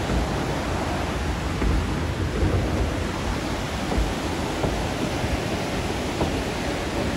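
Steady rushing rumble of a moving train ride over river rapids: rolling wheels, rushing water and wind buffeting the phone's microphone blend into one even noise, with irregular low thumps.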